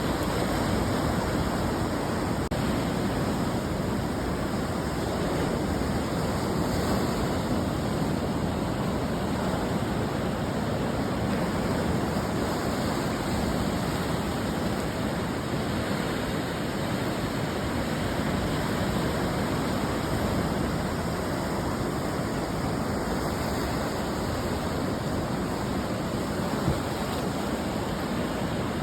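Ocean surf breaking on a beach: a steady wash of wave noise that swells and eases gently, with no single crash standing out.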